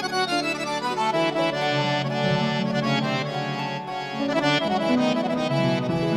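Harmonium playing the melody of a Punjabi devotional bhajan over held low notes, as an instrumental introduction with no singing.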